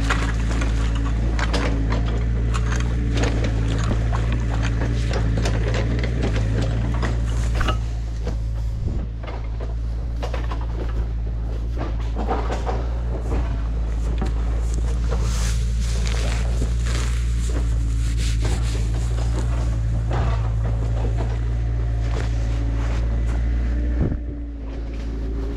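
Mini excavator's diesel engine running steadily at a low, even pitch, with irregular rustling and clicking of grass and brush close to the microphone.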